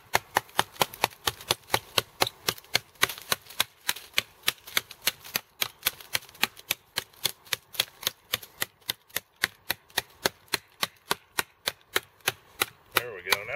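Becker fixed-blade knife swung hatchet-style on its wrist lanyard, chopping into a dead wooden stick: quick, even strikes of steel on wood, about four a second, without a break.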